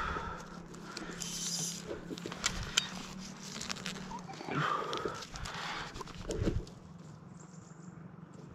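Clicks and knocks of a fibre optic drop cable and its metal clamp being handled at the top of a wooden utility pole, with two heavy breaths, one at the start and one about four and a half seconds in. The handling stops at about two thirds of the way through.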